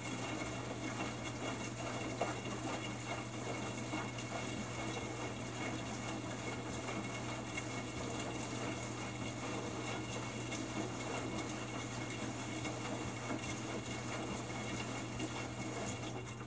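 Samsung WF45N5300AW front-load washer drum tumbling during a wash cycle, with water sloshing and splashing inside the turning drum. The sound stops near the end as the drum comes to rest.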